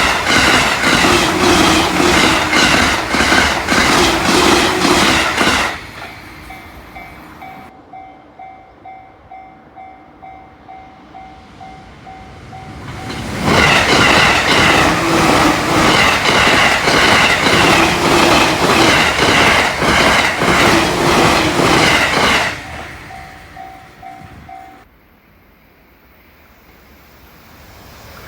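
Joban Line trains passing at over 120 km/h: a rapid, even clatter of wheels over rail joints, twice, each pass followed by the evenly repeating ding of a Japanese level-crossing bell. Near the end another train approaches, growing louder.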